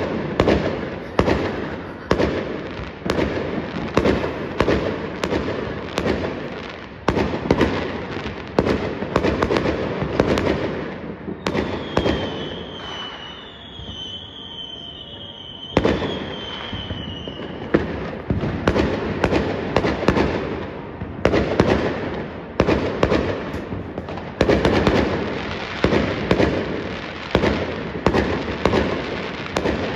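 Aerial fireworks going off in rapid, irregular bangs and crackles. About a third of the way in the bangs thin out for a few seconds, and a high wavering whistle sounds before the barrage picks up again.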